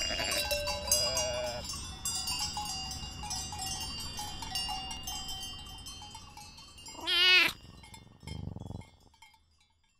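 Intro jingle of bright, tinkling chime notes that fade away, then a single wavering sheep bleat about seven seconds in, the loudest sound. A brief softer, low burst of noise follows, and everything fades out shortly after.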